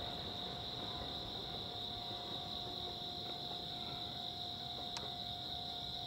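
Steady, unbroken high-pitched insect chorus, with a faint steady hum beneath it. A single faint click sounds about five seconds in.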